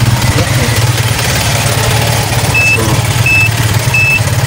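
Honda XRM motorcycle's single-cylinder engine idling while its turn-signal beeper gives a short high beep about every two-thirds of a second, starting about two and a half seconds in. The beeps follow the blinking turn signal and show that the newly fitted flasher relay is working.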